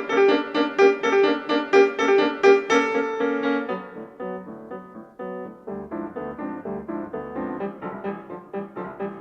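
Background piano music: a melody of struck notes, growing softer and lower about four seconds in.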